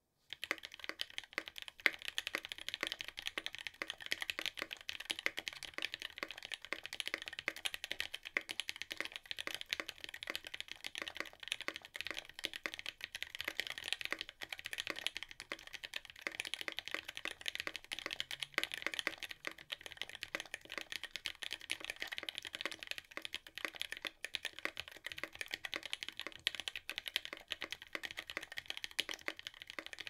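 Nemui 60% custom mechanical keyboard with a brass plate, lubed and filmed JWK Alpaca linear switches and GMK keycaps being typed on: fast, continuous keystrokes that begin a moment in.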